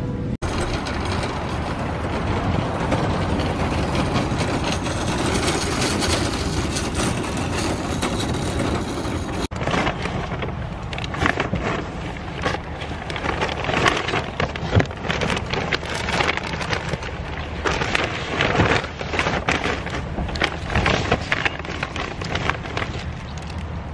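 Steady rattling noise of a loaded shopping cart being pushed. About nine seconds in it cuts to irregular crinkling, crackling and knocking from paper grocery bags being handled and carried.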